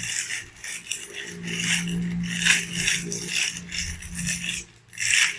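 Plastic packaging rustling and crinkling in irregular bursts as the parts of a plastic action figure are unwrapped and handled.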